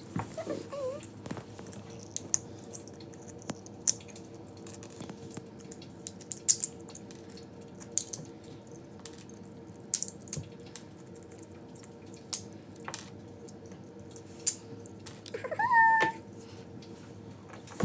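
Irregular sharp clicks and snaps, typical of tree supports being broken off a freshly finished PLA 3D print, over a steady low hum. A brief high-pitched call sounds faintly right at the start and more loudly near the end.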